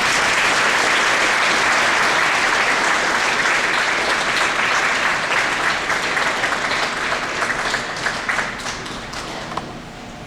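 Audience applauding: a dense round of clapping that starts suddenly, thins to scattered separate claps near the end and dies away.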